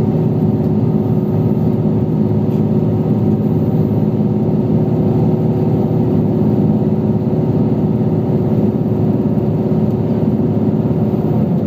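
A large engine running steadily with a constant droning hum, easing off slightly near the end.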